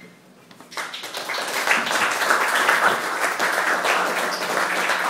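Audience applauding, starting after a short pause about a second in, swelling quickly, then holding steady.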